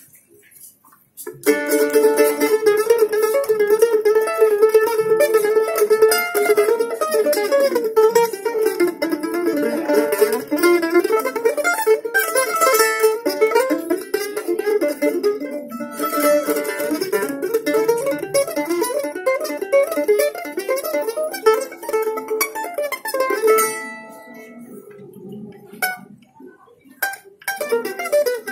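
Solo A-style mandolin played with a pick, starting about a second in: held melody notes sustained by fast tremolo picking, which grows quieter and sparser with short breaks near the end.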